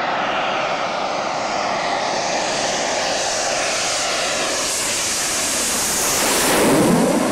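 Panavia Tornado jet with twin RB199 turbofans passing low overhead. The engine noise builds steadily to its loudest about six to seven seconds in as the jet goes over, then the pitch drops and the sound starts to fade.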